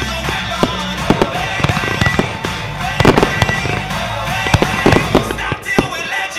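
Fireworks display: rapid sharp bangs and pops of launching and bursting aerial effects, with the loudest cluster of bangs about three seconds in, over music.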